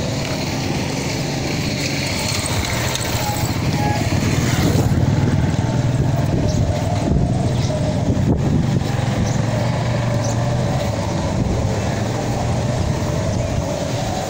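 Motorcycle engine running as the bike rides past, loudest around the middle.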